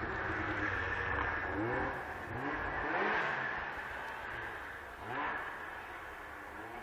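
Snowmobile engine revving in repeated rising bursts, fading slowly.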